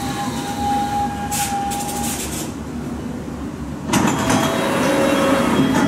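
London Underground S-stock train drawing to a stop at the platform: a steady motor whine fades out about two seconds in, with short hisses of air. About four seconds in, a sudden louder burst starts with beeping tones as the doors are released.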